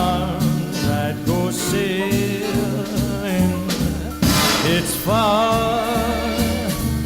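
Background music: a song with a steady bass and drum beat and a wavering melody line, with a cymbal crash about four seconds in.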